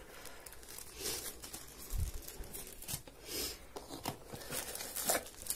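Crinkling and rustling of a foot-patch packet and paper tape sheets being handled, in short irregular bursts, with a soft low bump about two seconds in.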